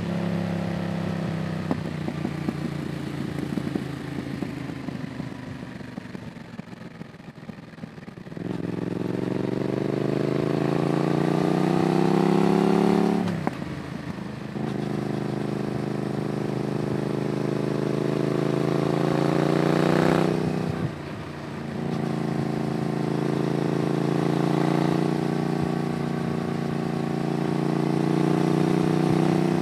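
Yamaha MT-07's parallel-twin engine through an IXIL aftermarket exhaust, ridden. The engine note falls for the first eight seconds or so with a crackle off the throttle, then climbs hard under acceleration. It dips at a gear change about thirteen seconds in, climbs again and shifts again about twenty-one seconds in, then pulls on with a slowly rising note.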